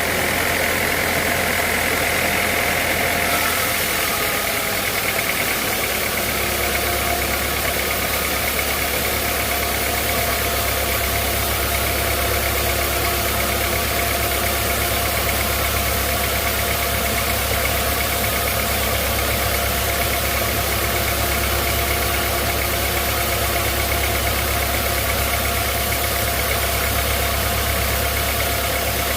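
Sawmill machinery running steadily: a constant low hum with a steady high whine over it, the low hum shifting slightly about five seconds in.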